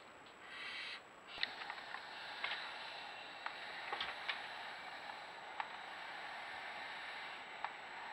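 Barn owl gives a short hissing call about half a second in. Then comes a steady hiss with scattered sharp clicks and taps as the owl shuffles about on the wooden nest box.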